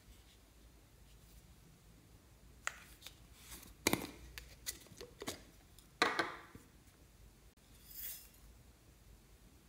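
Hard plastic Minion-shaped bottle handled and its screw cap twisted, giving several sharp clicks and knocks at irregular intervals, the loudest about four and six seconds in, the second followed by a brief scrape.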